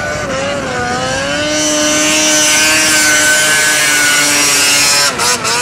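Snowmobile engine running at high, steady revs as the sled skims across open water. Its pitch climbs slightly about a second in, holds for about four seconds, then drops away near the end.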